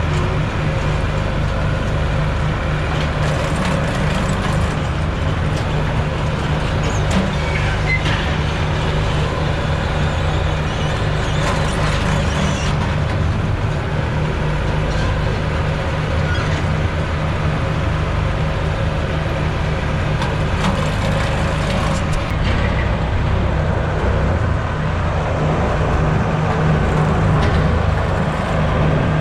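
Engine of haying machinery running steadily at a constant speed, with a few faint clanks over it.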